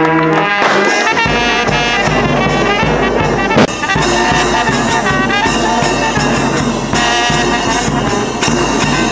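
Brass band playing, with trumpets, saxophone and a tuba-type horn; a low bass line comes in about a second in. A short sharp click sounds about three and a half seconds in.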